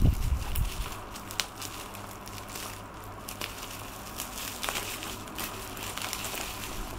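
Plastic bubble wrap crinkling as it is cut with scissors and pulled away from a boxed product, with a few sharp clicks along the way. Low handling thumps in the first half second.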